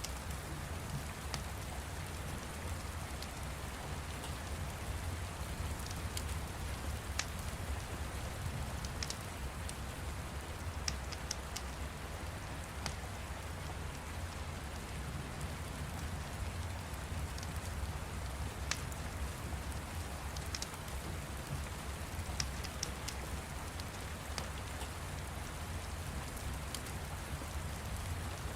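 Steady rain ambience with a low rumble underneath, and scattered sharp crackles from a fire every few seconds.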